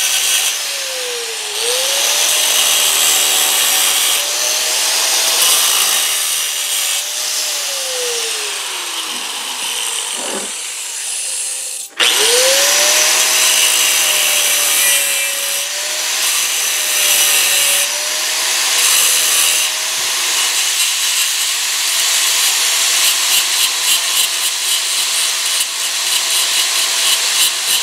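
Cordless DeWalt angle grinder grinding a V-groove along a crack in a cast iron exhaust manifold, its motor whine dipping as the disc bites. About ten seconds in the grinder winds down to a stop. About two seconds later it is switched on again, spins back up and goes on grinding.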